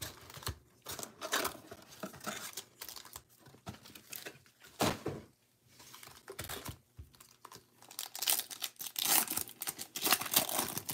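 Plastic wrapper of a Bowman baseball card pack being handled and torn open: scattered rustles and crackles at first, then dense crinkling and tearing from about eight seconds in.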